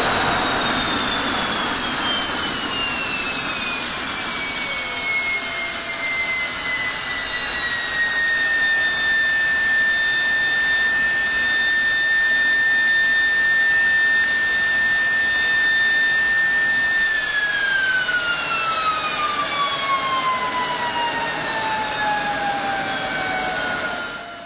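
F-16 jet engine running on a ground test stand: a loud rushing roar under a high whine. The whine falls in pitch for several seconds, holds steady, then falls again as the engine spools down, and the roar eases off near the end.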